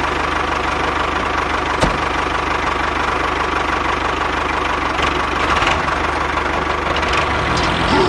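Diesel tractor engine idling steadily with an even low beat.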